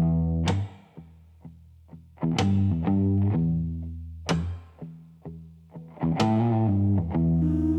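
Instrumental intro of a slow, dark blues-rock song, with no singing. Distorted electric guitar chords are struck about every two seconds and ring out over a bass line. A held tone joins near the end.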